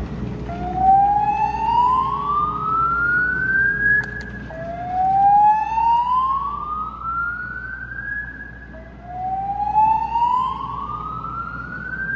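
Fire alarm voice-evacuation speakers sounding the slow whoop evacuation tone: three rising sweeps, each climbing in pitch for about four seconds before dropping back and starting again.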